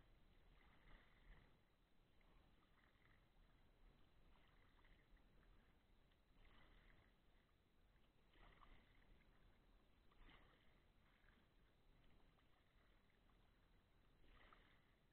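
Faint kayak paddle strokes: the blades dip into the river with soft splashes about every two seconds, over otherwise near-silent water.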